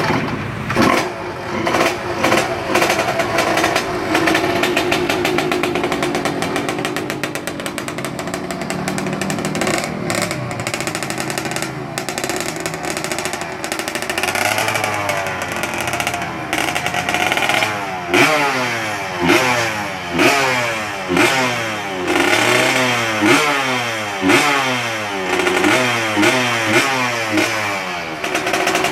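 A trail motorcycle's Yamaha F1ZR two-stroke engine running during tuning, first at a steady high idle, then blipped over and over from about two-thirds of the way in, each rev rising and falling about once a second.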